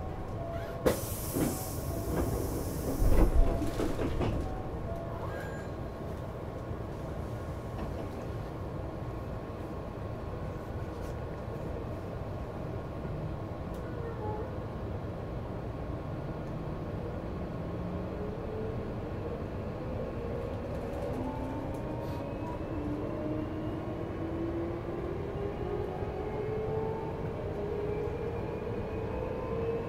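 Hankyu 8000 series electric train at a station: a short hiss of air and a heavy thump about three seconds in as the sliding doors shut. After a quiet pause, the Toshiba IGBT-VVVF inverter's whine starts, several tones rising steadily in pitch as the train pulls away.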